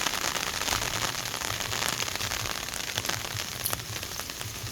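Heavy rain falling steadily, a dense hiss with scattered drop ticks.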